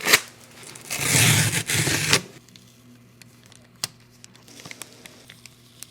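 Paper packaging being torn and crinkled for about a second, after a sharp click; then only a few faint taps.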